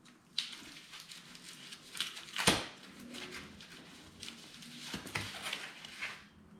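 Rustling and handling noises as bike parts are worked on by hand, with scattered clicks, a sharp knock about two and a half seconds in and a smaller knock about five seconds in.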